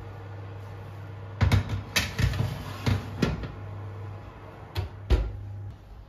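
Steady low hum of an electric oven running with its door open, stopping shortly before the end. Over it come a series of about seven sharp knocks and clatters of kitchenware being handled, the loudest about a second and a half in and near the end.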